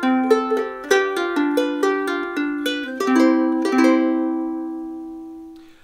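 Ukulele played by hand: a quick run of plucked notes and chords, ending on a chord that rings out and fades away over the last couple of seconds. Recorded through an iPhone 7 Plus's built-in microphone.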